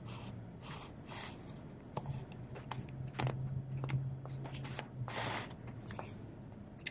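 Close-up rustling, tapping and scraping of a handheld phone camera being moved and adjusted, with clothing brushing the microphone, over a steady low hum from the running car and its heater.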